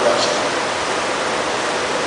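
Audience applauding steadily, an even clatter of many hands.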